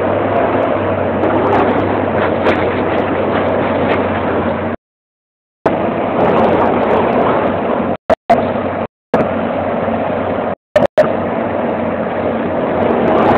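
Daewoo crawler excavator's diesel engine running steadily during demolition, with a few faint knocks of rubble in the first couple of seconds, heard through a mobile phone's microphone. The sound cuts out completely several times for under a second.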